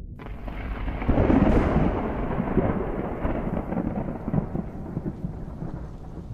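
Rolling thunder with a rain-like hiss over it, swelling about a second in and slowly dying away.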